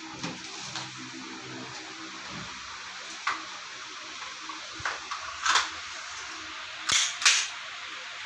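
Battery-powered Cybergun Colt M4 airsoft rifle firing single shots on semi-auto: about five sharp cracks at uneven spacing, the last two the loudest. The BBs are not being fed from the magazine into the gun yet.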